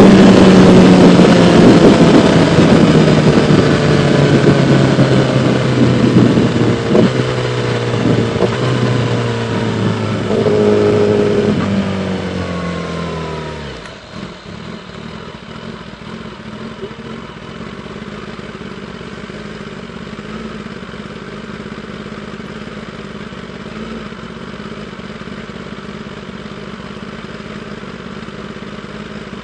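2016 Kawasaki ZX-10R's inline-four engine winding down as the bike slows, its pitch falling steadily for about fourteen seconds. About halfway through it settles into a steady, much quieter idle.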